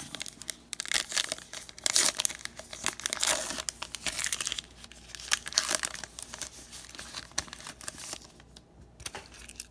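Plastic wrapper of a baseball card pack being torn open and crinkled, a dense irregular crackling that eases off near the end.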